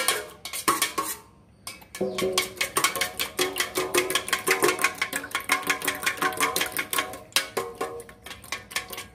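A spoon beating eggs in a stainless steel bowl: fast, rhythmic metal clinks several times a second, with the bowl ringing. It pauses briefly about a second in, then carries on.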